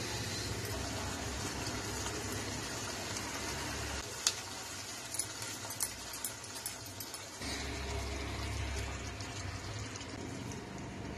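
Creamy gravy simmering and bubbling in a kadai over a steady low hum and hiss. From about four to seven seconds in, scattered clicks and taps come as it is stirred with a silicone spatula.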